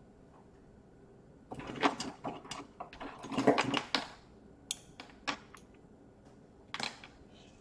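Small parts and tools being handled on a plastic laptop case: a flurry of quick clicks and rattles lasting about two and a half seconds, then a few single sharp clicks.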